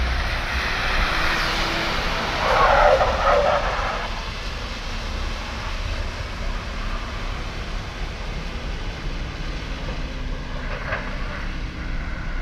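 City bus driving past on a wet track through water jets: hissing spray and tyre noise swell as it passes close, loudest two to three seconds in, then settle to a steadier, fainter wash as the bus moves away.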